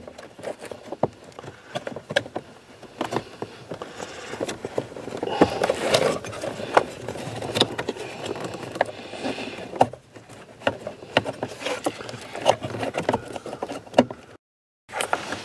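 Scattered plastic clicks, knocks and scrapes as a blend door actuator is worked into its seat under the dashboard and turned by hand to line up with the door shaft. The sound drops out briefly near the end.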